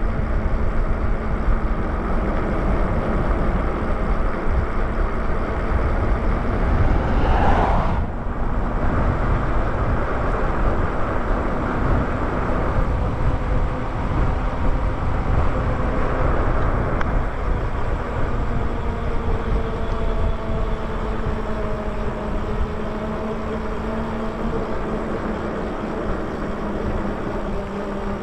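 Wind buffeting the microphone and tyre rumble from riding an electric bike along a road at speed, with a faint steady hum underneath. About a quarter of the way in a louder rising whoosh swells and cuts off suddenly.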